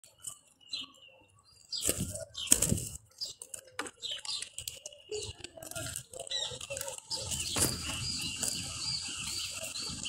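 Doves and small birds at a ground seed feeder: wings flap in sharp bursts, loudest about two seconds in and again near eight seconds, while small birds chirp repeatedly through the second half.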